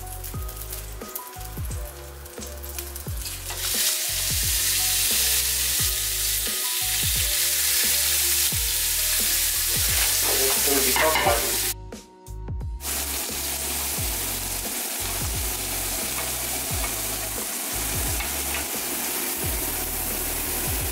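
Raw beef burger patties sizzling in a hot grill pan. The sizzle starts about four seconds in and holds steady, with a brief dip near the middle.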